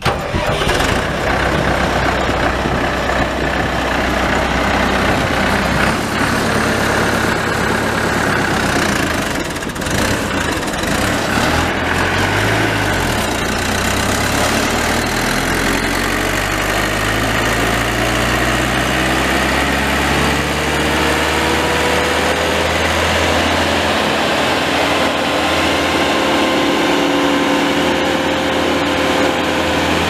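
Caterpillar 3054C four-cylinder turbo diesel engine of a Bandit 1090XP wood chipper running steadily. In the second half, tones in the sound rise slowly in pitch.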